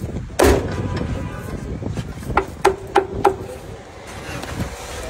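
A knife knocking on a wooden cutting board: one loud knock with a ringing tail about half a second in, then four quick knocks about a third of a second apart a little past halfway, over steady street noise.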